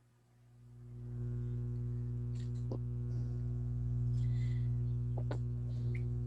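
Steady electrical mains hum, a low buzz that fades in over the first second and then holds, with a few faint clicks.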